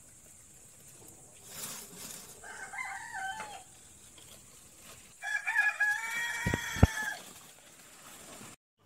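A rooster crows twice: a short crow about two and a half seconds in, then a longer one from about five to seven seconds in. Two low thumps land near the end of the second crow.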